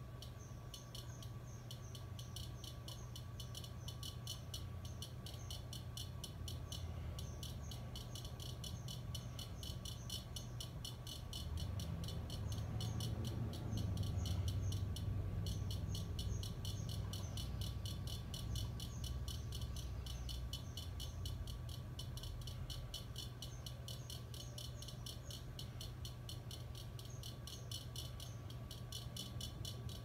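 Hampton Bay Minuet II four-blade ceiling fan running, with a low steady hum and a rapid, even clicking that carries on throughout. A low rumble swells for several seconds midway, then eases back.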